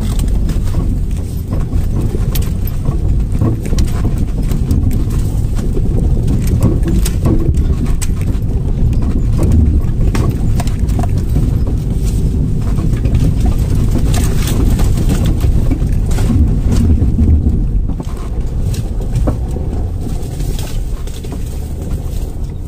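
Off-road 4x4 driving over a rough dirt mountain track, heard from inside the cabin: a steady low rumble of engine and tyres, with frequent knocks and rattles from the bodywork and stones underneath.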